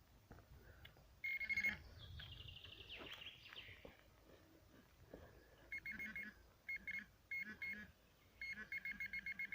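Metal detector beeping faintly over a target in freshly dug soil: a short tone, then a higher held tone, then runs of short beeps that come quicker near the end as the detector closes in on the buried metal.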